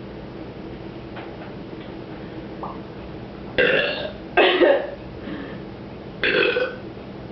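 Three loud burps, each about half a second long: two close together about three and a half seconds in, and a third about two seconds later.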